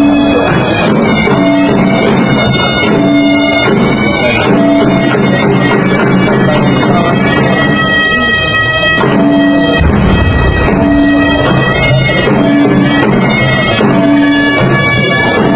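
Ceremonial reed-pipe music: shrill double-reed pipes play a repeating melody of held notes over a steady low drone.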